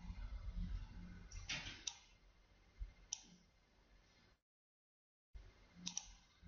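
A few sharp computer mouse clicks, a pair about a second and a half in, one around three seconds and a quick double click near the end, over faint low room hum. Partway through, the sound cuts out completely for about a second.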